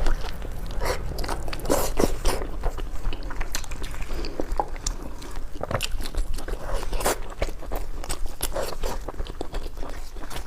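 A person biting and chewing food, with many short irregular clicks and crunches.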